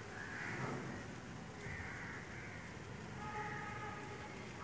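Crows cawing faintly: three hoarse caws about a second and a half apart.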